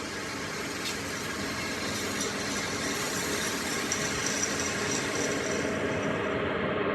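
A machine running steadily with a continuous mechanical noise that slowly grows louder, with a faint high whine partway through.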